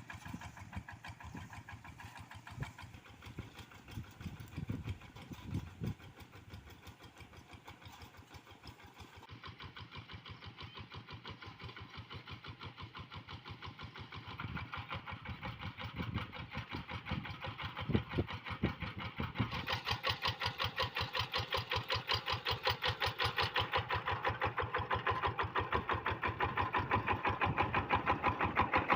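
Kubota RD85DI single-cylinder diesel on a Quick G1000 hand tractor running with a steady, rapid firing beat. It grows clearly louder over the second half.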